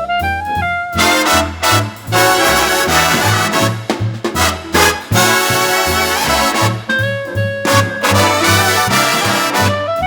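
Instrumental vintage-style Christmas swing jazz: horns play full chords over a steady stepping bass line.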